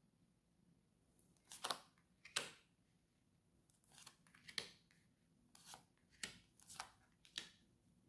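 Tarot cards being drawn from the deck and laid down one after another on a burlap-covered table: about eight short papery swishes and slaps.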